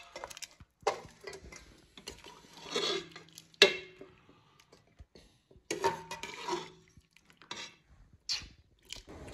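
Metal ladle clinking and scraping against a pressure cooker and a steel bowl as boiled mutton pieces are lifted out of the stock and set in the bowl. The clinks come in scattered bursts, with one sharp clank a little over three and a half seconds in.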